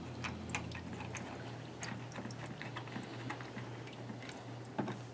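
Faint small clicks and scrapes of fingers turning the thumb screws of a multi-pin cable connector, with one slightly louder click near the end, over a steady low hum.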